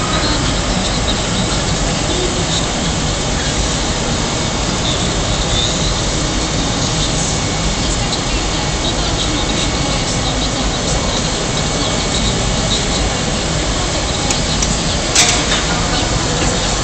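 Steady loud roar of a glassworks' gas-fired furnaces and burners running, with one sharp knock about 15 seconds in.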